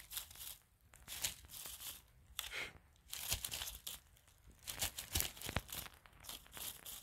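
Dry fallen leaves and twigs crackling and rustling underfoot in short, irregular bursts.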